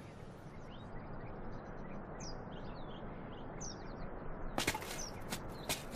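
Small birds chirping in short falling calls over a faint steady background hum. About two thirds in, a few sharp clicks or knocks join it.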